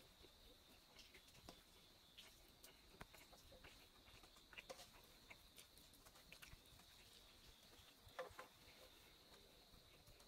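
Near silence, with faint scattered clicks and smacks of fingers mixing food on a steel plate and of chewing, the clearest about eight seconds in, over a faint steady high-pitched hiss.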